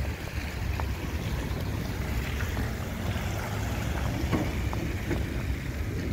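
Outdoor street noise under wind buffeting the microphone: a steady low rumble, with a few faint clicks in the middle.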